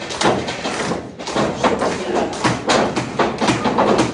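Irregular thuds of wrestlers' feet on a wrestling ring, several a second, as they circle and lock up.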